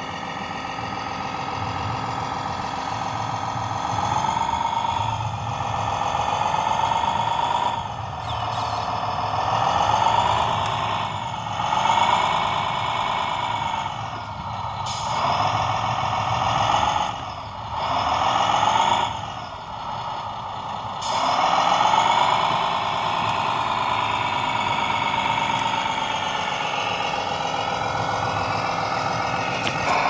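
Radio-controlled MAN tractor unit's sound module playing a simulated diesel truck engine, its pitch rising and falling repeatedly as the truck is driven, with a few short air-brake-like hisses.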